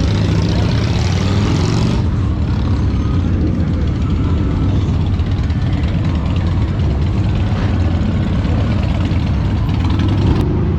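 Several motorcycle engines idling and running at low speed, a loud, steady low rumble.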